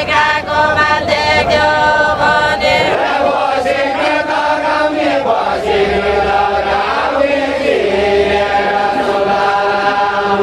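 A group of voices singing a deuda verse together in long, drawn-out held notes, Nepali far-western folk singing of the Deuda khel.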